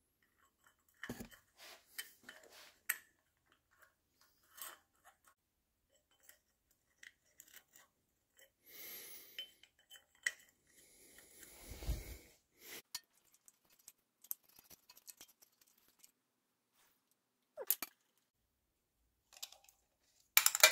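Quiet, scattered metallic clinks and clicks of hand tools and parts being handled on a small generator engine and its tube frame. A short rustle and a dull thump come about midway, and a sharper clink comes near the end.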